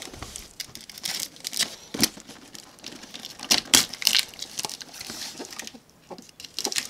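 Knife slicing through plastic stretch wrap and packing tape on a cardboard shipping box, with the plastic crinkling and tearing and the cardboard flaps scraping as they are pulled open. Irregular crackling throughout, easing off briefly near the end.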